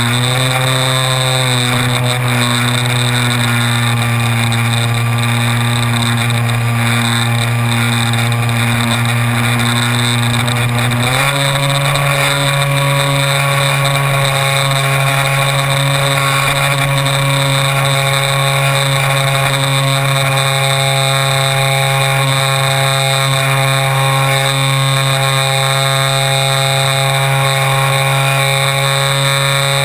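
Electric motor and propeller of a Multiplex Xeno RC flying wing, heard from a camera mounted on the plane, running with a steady droning whine over rushing wind. The pitch wavers briefly near the start and steps up suddenly about eleven seconds in, then holds.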